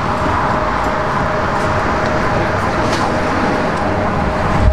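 Steady street traffic noise: a continuous rush with a faint steady hum under it.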